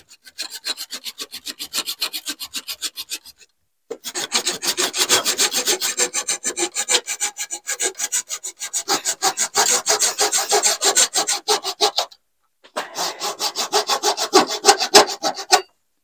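Hand saw cutting a glued-in strip of wood flush with the face of an old wooden door, in quick, even back-and-forth strokes. It comes in three bouts, with short breaks about three and a half seconds and twelve seconds in.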